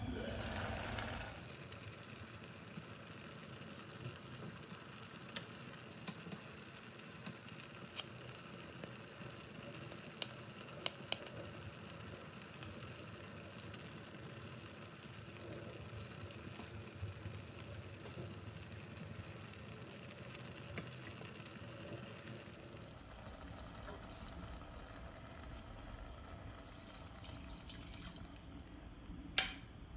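A pot of radish and dried fish simmering with a steady low sizzle. A glass lid is lifted off at the start, a wooden spoon clicks against the pot now and then while stirring, and water is poured in near the end.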